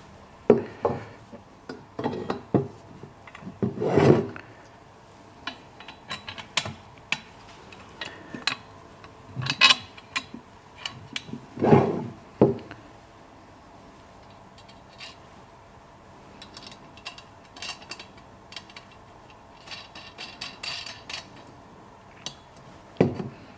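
Steel tubes of a wheelbarrow frame and their bolts being handled and fitted together by hand: irregular knocks, clinks and rubbing of metal parts against each other and the table, with a few louder knocks among them.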